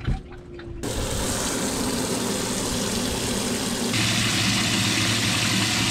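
Boat livewell pump switching on about a second in and running with a steady hum, water hissing into the well; it gets louder about four seconds in.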